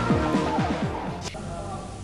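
Electronic theme music for a TV news bulletin's opening titles, with a fast pulsing beat that fades out over the second half.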